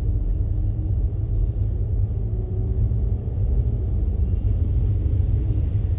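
Steady low rumble of car cabin noise, engine and road noise, from a car on a flooded road.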